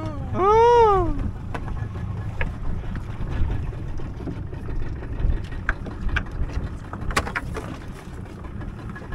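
A steady low outdoor rumble, with a person's drawn-out call that rises and falls in pitch about half a second in, and a few scattered sharp clicks later.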